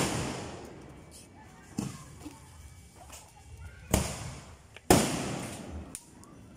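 Shells from a 3-inch, 18-shot fireworks cake bursting one after another, each a sharp bang that dies away. The two loudest come about four and five seconds in, with smaller pops between.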